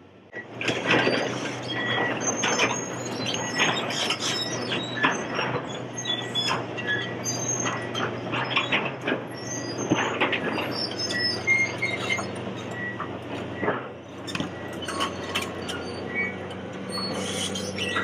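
Komatsu hydraulic excavator moving and dropping large quarry stone: its diesel engine runs steadily under a constant clatter of rocks knocking together, with high squeals and scrapes of the steel bucket grinding on stone. It starts suddenly about half a second in.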